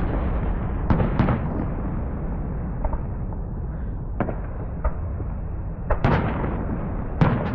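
Fireworks going off: sharp bangs and pops about a second in, around four to five seconds, and again near six and seven seconds, over a continuous low rumble of more fireworks.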